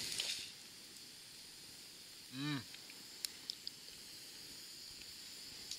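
Faint background hiss, broken about halfway by a short hummed "mm" from a person, then a few faint sharp clicks of forks against a steel frying pan.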